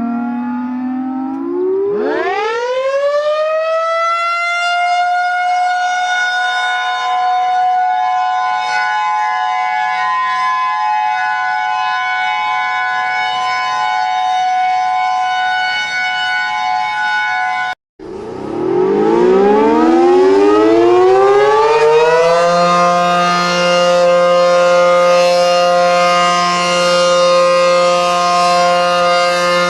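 Civil defense warning siren winding up from a low pitch to a steady tone and holding it, then cutting off abruptly about 18 seconds in. A second siren, with a deeper chord-like tone, then winds up and holds steady.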